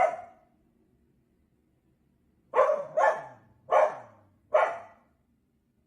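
A dog barking: a single bark at the very start, then after a pause four barks in a row over about two seconds.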